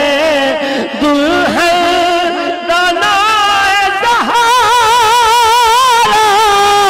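A man singing into a microphone, drawing out long melismatic notes with no words. From about three seconds in he holds a note with a wide, even vibrato.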